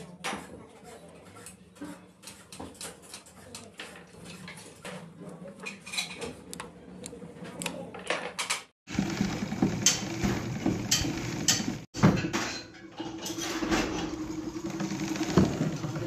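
Metal parts of a sewing machine head clicking and clinking as they are handled and fitted by hand, a string of light taps. About halfway through, after a cut, a louder, busier clatter over a steady hum takes over.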